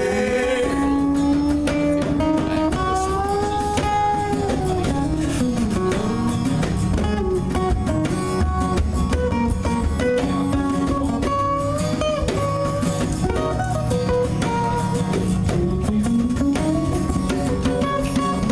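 Live rock band playing an instrumental break in a song, with an electric or acoustic guitar carrying a melody full of pitch bends over the band's steady backing.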